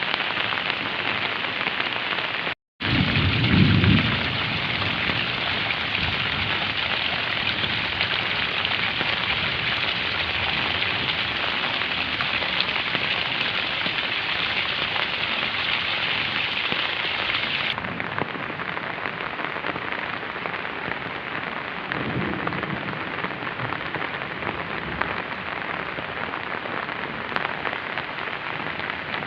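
Heavy rain falling steadily on the village, a dense even hiss. The sound drops out for an instant about two and a half seconds in, and a low rumble comes just after and again past the twenty-second mark.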